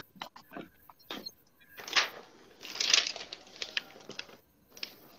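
Faint rustling and scuffing of a paper workbook being picked up and held to a webcam, with a few light clicks, coming over an online call's audio.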